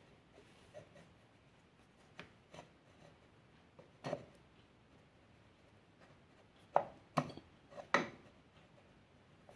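Scattered light clicks and knocks of metal being handled as the clutch cover of a Yamaha YBR 125 engine is held in place and its bolts fitted by hand, with the loudest four close together in the last few seconds.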